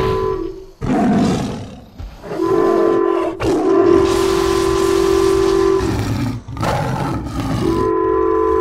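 A train horn sounding a steady chord that breaks off and comes back a few times, with loud animal roars filling the gaps, about a second in and again after about six seconds.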